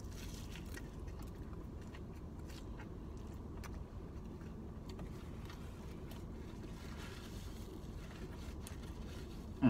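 Chewing and soft rustling of a sandwich and its paper wrapper, faint clicks and scrapes over a steady low rumble inside a car cabin. A brief low vocal sound comes right at the end.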